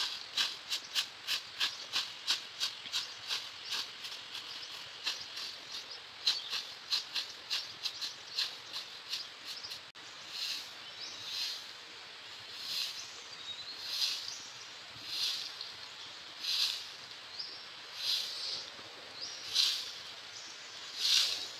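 Long-handled broom sweeping dry leaves across an asphalt road, bristles scratching the surface. Quick short strokes, about three a second, give way about ten seconds in to slower, longer swishes about one every second and a half.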